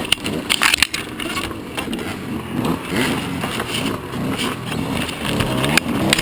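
Small two-stroke dirt bike engine running and revving up and down, its pitch rising and falling repeatedly, with scattered knocks and rattles from the ride.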